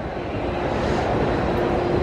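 Steady background din of a large indoor train hall, a broad hum with a faint steady tone in it.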